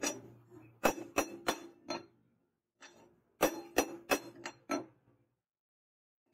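Hand hammer striking a cold leaf-spring steel cleaver blade on a steel pipe anvil, each blow a sharp clink with a short metallic ring. Two runs of about five blows, roughly three a second, with about a second's pause between them.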